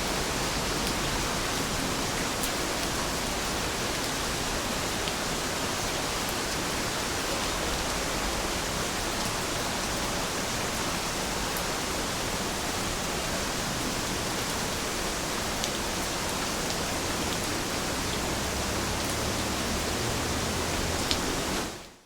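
Steady rain falling, an even hiss with occasional faint drop ticks, fading out quickly at the very end.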